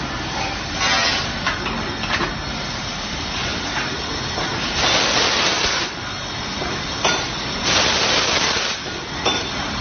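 CNC copper tube laser cutting machine with automatic tube feeding running: steady mechanical noise with three bursts of air hissing, each about a second long, and a few sharp clicks.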